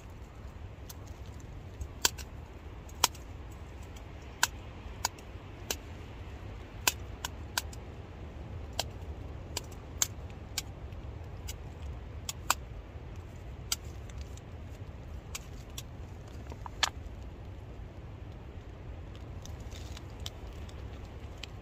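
Irregular sharp metallic clicks and taps of a spoon in a steel camping pot as food is spooned out of a pouch, about one or two a second, stopping near the end. Under them runs a steady low rumble of wind on the tent.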